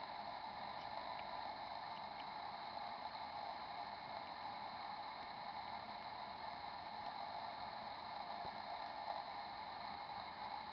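Steady hiss of indoor room tone picked up by a camera's built-in microphone, with a few faint ticks.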